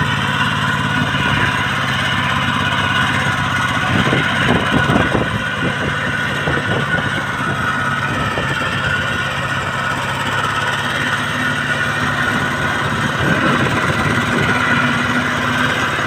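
Kubota bulldozer's diesel engine running steadily, with a few knocks about four to five seconds in.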